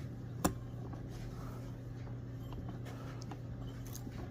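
Pliers working a chainsaw's clutch tight on its shaft: one sharp metal click about half a second in, then a few faint ticks, over a steady low hum.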